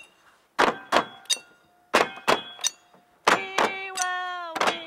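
Hammers driving nails into wooden roof decking: sharp, ringing blows in quick runs of two or three.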